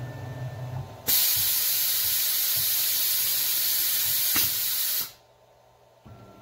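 Compressed-air blast on a CNC mill's tilting tool-changer rack hissing steadily for about four seconds, blowing the top of the tool-holder fingers clean during the tool change, then cutting off suddenly. Before it there is a low machine hum, and near its end a short click.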